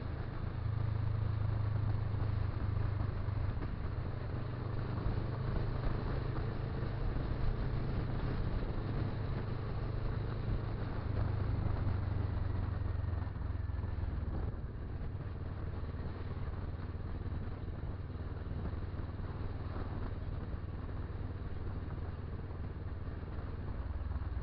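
Motorcycle engine running under way, a steady low drone mixed with wind and road rush on the bike-mounted microphone; it eases off a little about halfway through as the bike slows.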